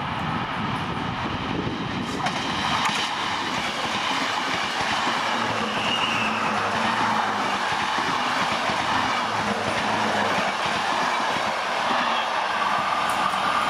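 NMBS AM80 'Break' electric multiple units, several sets coupled together, passing at speed: a steady rush of wheels on rails that grows as the train comes alongside, with a few sharp clicks of wheels over rail joints about two seconds in.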